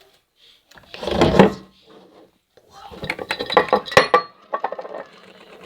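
Clatter and knocking of hard objects being handled: one heavy thump about a second in, then a quick run of sharp clicks and knocks.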